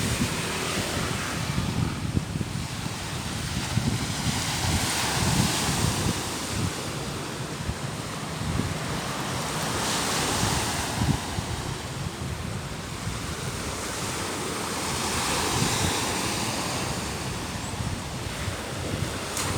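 Sea waves washing onto the shore, the surf's hiss swelling and ebbing every few seconds, with wind buffeting the microphone.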